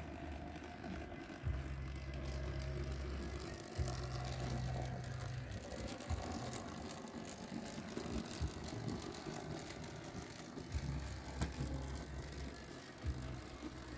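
N-scale model steam locomotive running along the track, its small electric motor and gearing giving a low hum that comes and goes, with scattered short clicks from the wheels and track.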